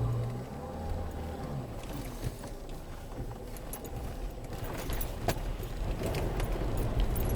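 Land Rover Freelander 2 running slowly over rough quarry ground, a low rumble with scattered sharp clicks and crackles that grow denser over the last few seconds.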